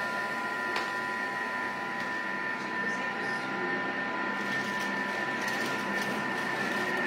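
Thermomix TM6 mixing sweet shortcrust pastry dough (butter, flour, egg, sugar) at speed 5: a steady motor whine.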